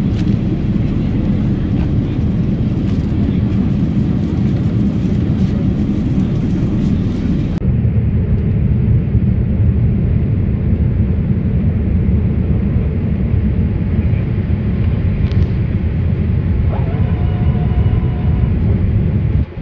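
Steady cabin noise of a Boeing 787-8 airliner in flight at the start of its descent: a loud low rumble of engines and airflow at a window seat over the wing. About a third of the way in the sound turns duller as its upper hiss drops away.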